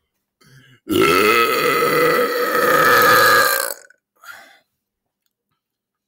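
A man's single long, loud belch, forced out on purpose as loud as he can, lasting about three seconds and starting about a second in.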